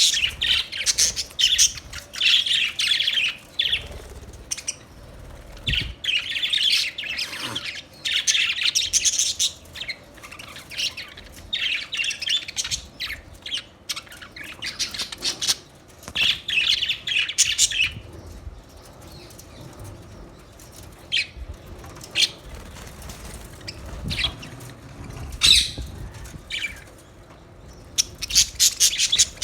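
Budgerigars chirping and chattering in bouts of rapid warbling, with sharper single calls in between.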